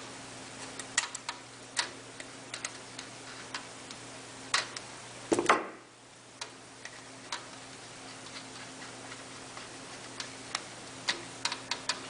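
Irregular small clicks and taps of a screwdriver and wire on a light socket's terminal screw as the copper wire is tightened down, with one louder knock about halfway. A faint steady low hum runs underneath.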